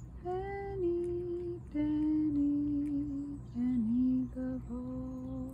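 A woman humming a slow, lullaby-like tune in long held notes that step down in pitch, with short breaks between phrases.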